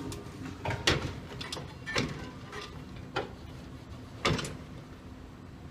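Pressure-washer wand and hose being handled and stowed: four sharp knocks about a second apart, over a faint steady hum.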